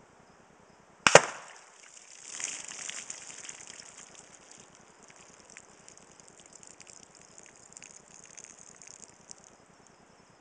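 A single sharp report from a Quackenbush .308 big-bore air rifle firing a 125-grain hollow point, about a second in, fading quickly.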